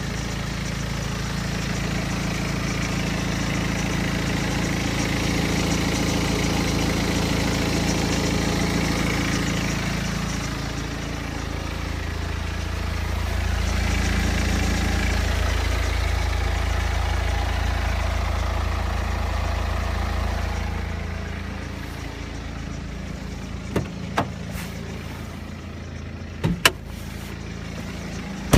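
BMW 120d's N47 four-cylinder diesel engine running at idle in cold weather, with the timing chain noise that the owner finds clearly audible at 125,000 km, a known sign of a stretching N47 timing chain. The sound grows and fades in level, and a few sharp clicks come near the end.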